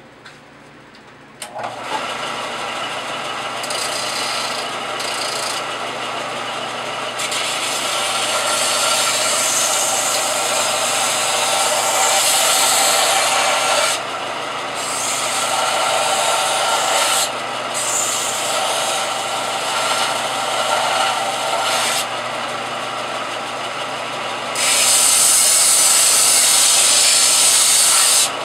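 Bench belt-and-disc sander switching on and running with a steady motor hum, while a thin copper-tinted sheet-steel firewall piece is pressed to it in several passes, each a loud rasping hiss of metal being sanded smooth. The last pass, near the end, is the loudest.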